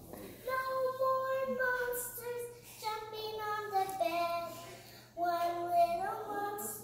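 A child singing in a high voice, holding notes about a second each and stepping up and down in pitch, with a short break a little before the end.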